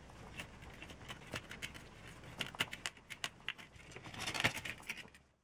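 Irregular light metallic clicks and scrapes of a spoke wrench and spokes being handled at a bicycle rim while the spokes are loosened, with a louder cluster of clicks about four and a half seconds in. The sound cuts off just before the end.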